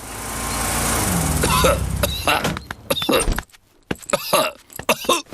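A cartoon car engine running as it drives up, followed by a string of short coughs from Doctor Brown Bear, who has caught Pedro's cough.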